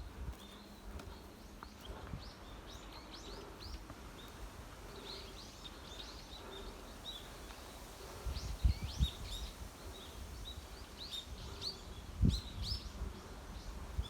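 Small birds chirping over and over, in quick runs of short, high chirps. A few dull low thumps come about two-thirds of the way in and again near the end, and these are the loudest sounds.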